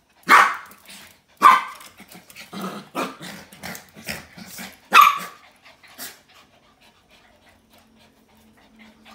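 Pet dogs barking while playing: loud sharp barks right at the start, about a second later and about five seconds in, with softer barks between them and one more just after; then they go quiet.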